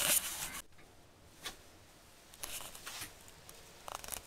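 Brief rustling and rubbing noises with a soft click, like a handheld camera being handled, between quieter stretches.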